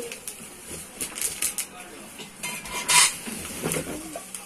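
Metal office-chair parts clinking and clanking against each other and the box as they are lifted out of a cardboard carton, with plastic wrapping rustling; the loudest, ringing clank comes about three seconds in.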